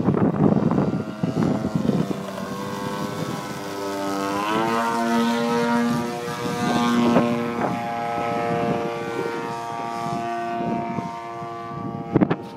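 Radio-controlled model airplane's motor and propeller droning overhead as a steady pitched tone, which rises in pitch about four and a half seconds in as the motor speeds up. Wind buffets the microphone at the start and again near the end.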